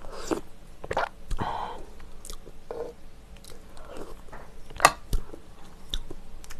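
Close-up mouth sounds of a person sipping ramen broth from a spoon and slurping and swallowing, in several short bursts, with a sharp click a little before five seconds in.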